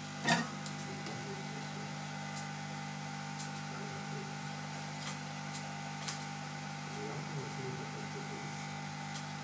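A sharp knock about a third of a second in as a laptop display panel is set down on the work mat, then a few light clicks as hands work at the laptop lid's plastic bezel, over a steady hum.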